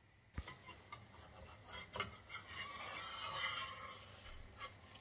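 A spatula or other utensil scraping and rubbing against a frying pan under a thin pancake, loosening it to flip, with two sharp taps, about half a second and two seconds in.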